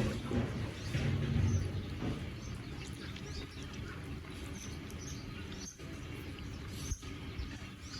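Small birds chirping, short high chirps about once a second, over a steady background hum, with a louder low rumble for a moment about a second in.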